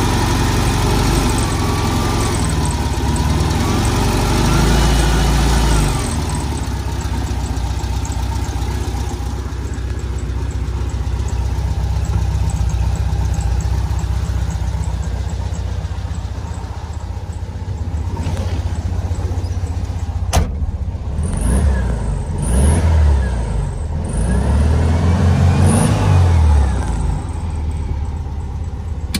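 1956 Volkswagen Beetle's air-cooled flat-four engine running on a cold start. It is revved up by hand at the carburettor linkage in the first few seconds, then settles to a steady idle. Near the end there are several quick blips of the throttle, with a single sharp click shortly before them.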